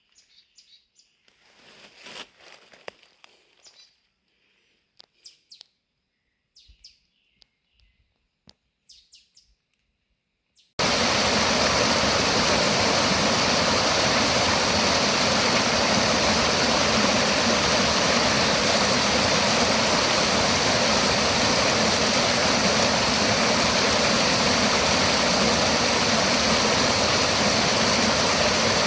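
Faint, scattered bird chirps with a brief rustle, then, about eleven seconds in, an abrupt switch to a loud, steady rushing noise.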